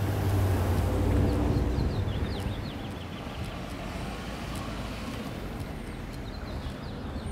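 Street traffic: a car passing, loudest over the first two seconds, then steady traffic noise with faint high chirping.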